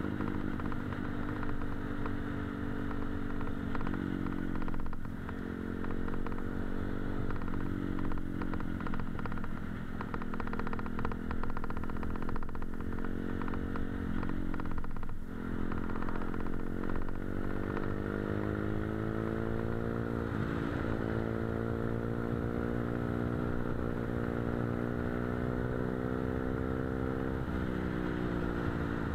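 Motorcycle engine running under way, heard from the bike being ridden. Its note climbs slowly and drops back several times as the rider eases off or shifts, over a steady rumble of wind and road noise.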